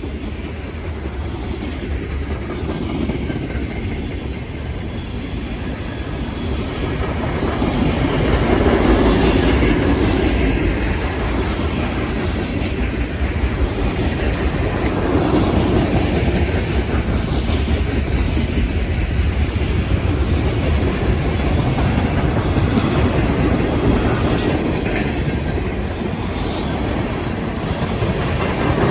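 A long freight train's cars rolling past: a continuous rumble of steel wheels on rail with clickety-clack over the joints. It grows louder about eight seconds in and stays up.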